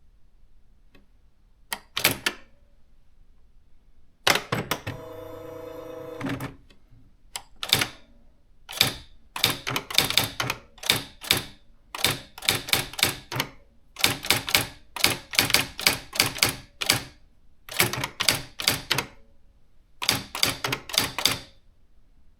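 Nakajima AX-80 electronic typewriter printing: a couple of strikes, then about two seconds of steady motor whir from the machine about four seconds in, then fast runs of sharp print strikes in bursts with short pauses between them, as a line of text is typed.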